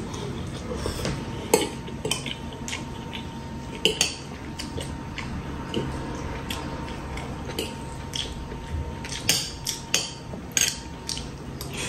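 Metal fork and spoon clinking and scraping against a ceramic bowl while twirling and eating spaghetti: irregular light clicks, a few sharper ones about ten seconds in.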